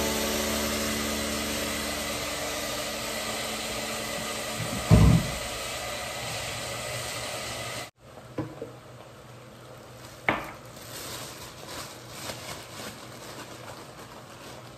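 Food sizzling in clay pots on a gas stove as a wooden spoon stirs, with a loud low thump about five seconds in. The sizzling cuts off sharply partway through, leaving a quieter background with a few light knocks and clicks.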